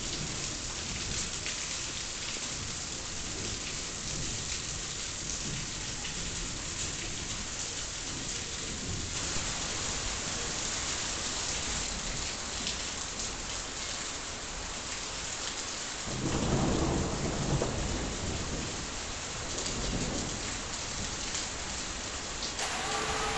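Heavy rain with thunder rumbling low underneath. About nine seconds in, the rain turns to a faster, brighter downpour. About sixteen seconds in, a loud thunderclap rumbles for a couple of seconds.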